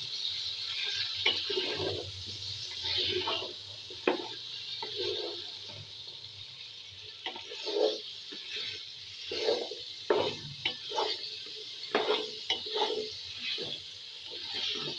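Cauliflower, carrots and potatoes sizzling in hot oil in a metal pot while a spatula stirs them, with irregular knocks and scrapes of the spatula against the pot.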